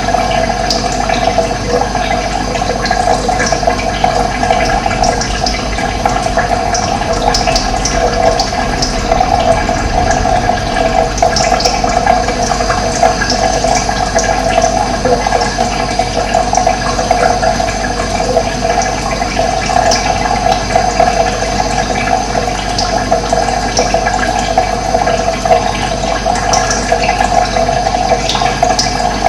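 Running water flowing steadily, a constant rushing sound, with occasional short high bird chirps over it.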